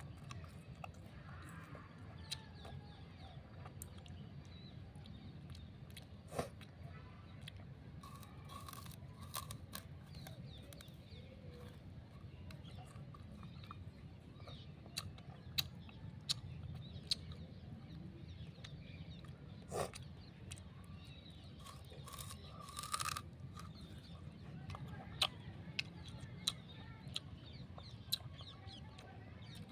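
Raw sugarcane being bitten and chewed: scattered crisp crunches and cracks, irregularly spaced. Chickens cluck now and then in the background over a low steady hum.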